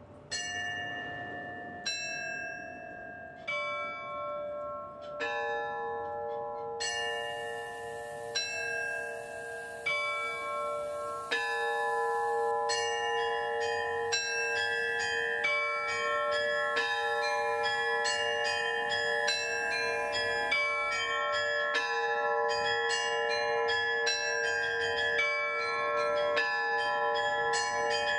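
A set of bells of several pitches ringing. At first single strikes come about every second and a half, each left to ring on. From about eleven seconds in the strikes come faster and several together, building into a continuous peal of overlapping tones.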